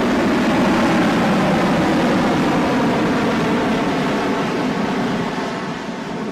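Loud, steady aircraft engine noise, a dense rumble with a hiss above it, slowly fading over the last couple of seconds.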